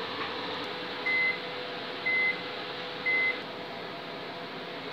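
Microwave oven beeping to signal the end of its cycle: three short high beeps about a second apart, over a steady hum.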